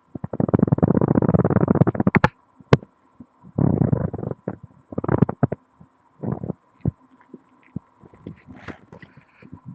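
Rubbing and scraping against the body picked up by a microphone pressed to the skin. It comes as irregular rough bursts, the first lasting about two seconds and the later ones shorter, with a few sharp clicks between them.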